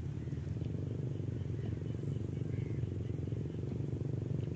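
Open-field ambience: a steady low drone with a constant high-pitched insect buzz over it, and a few faint short chirps.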